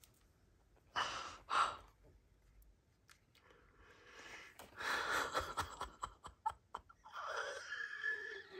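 A young woman's soft, breathy gasps and sighs of excitement: two short breaths about a second in, then a longer stretch of heavy breathing, turning into a strained, whining sound near the end.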